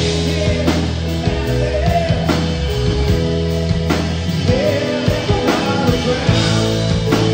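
Live rock band playing: a male lead vocal over a Gibson Les Paul electric guitar and a drum kit, with a steady beat.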